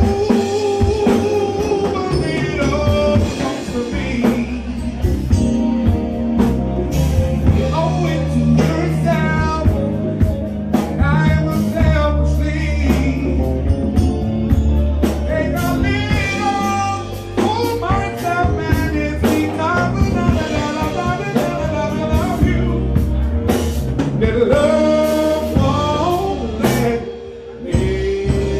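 A man singing live into a microphone over a band with drums.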